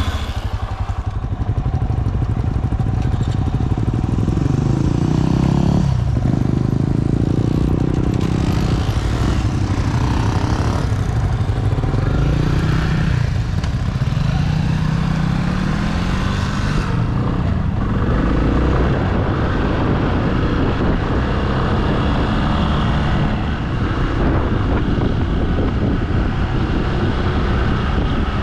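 Motorcycle engine pulling away and riding, its pitch rising and falling over and over as it revs up and shifts through the gears. After about 17 seconds it settles into a steadier, rougher drone.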